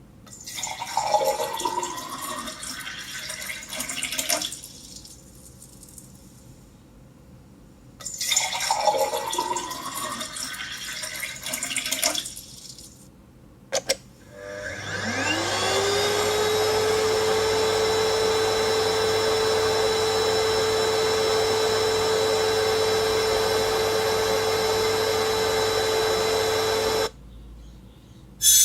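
Recorded household sounds for a guessing game. A noisy sound with a falling sweep plays twice, about four seconds each time. Then an electric motor spins up with a rising whine and runs steadily for about twelve seconds before stopping.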